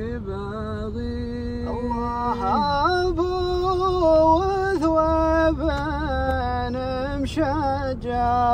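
A voice singing a chanted Arabic poem (sheilat style), one long held, ornamented note after another that steps up about two seconds in, over the low rumble of a moving car.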